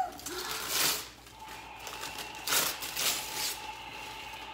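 Wrapping paper and tissue paper being torn and crumpled as a present is unwrapped, in two rustling bursts.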